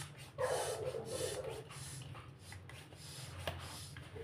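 Air being pushed through a small green hand pump into an inflatable rubber cushion: one long breathy puff about half a second in, then fainter hissing with a few small clicks as the cushion slowly fills.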